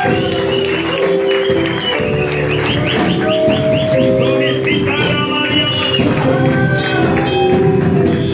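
Church music with a tambourine, held melody notes running throughout.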